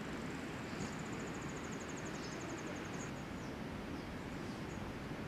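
Forest ambience: a steady background rush with faint, high-pitched chirps. A rapid, high trill runs from about one second in to about three seconds in.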